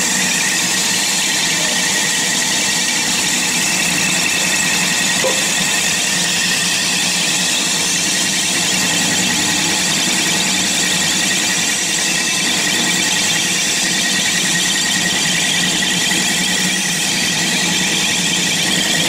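Pet food puffing machine (extruder) running steadily: an even machine noise with steady high-pitched whining tones over it.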